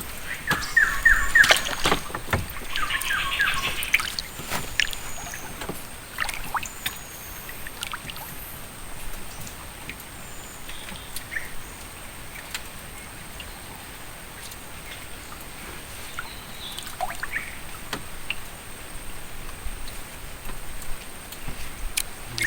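Quiet outdoor river ambience: birds call in the first few seconds, a quick series of short chirps followed by a buzzy trill, over a faint steady hiss. There are scattered light knocks throughout, typical of a small wooden boat being handled.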